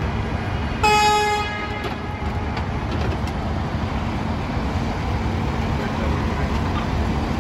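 A vehicle horn gives one short honk on a single steady note about a second in, over a continuous rumble of engines and street traffic.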